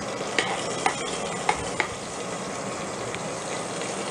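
Cumin seeds and dried red chillies sizzling in hot oil in a pressure cooker as a tadka is tempered, while a metal spoon stirs and clinks against the pot about four times in the first two seconds.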